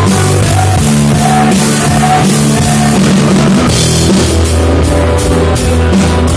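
Rock band playing live and loud: drum kit, low bass notes changing about once a second, and guitars.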